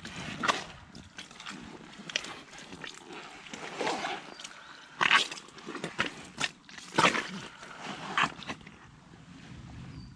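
Rubber boots squelching and sucking in thick clay mud as they are worked down and pulled out, an irregular run of wet slurps and pops, the loudest about five and seven seconds in.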